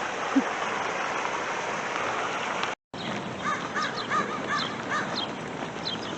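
Rushing stream water, then, after a cut, an American crow cawing a quick series of about six short caws over the water.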